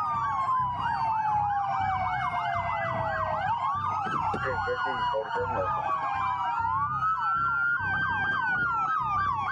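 Several police car sirens sounding at once: some on a fast yelp, sweeping rapidly up and down, and one on a slow wail that falls and rises again.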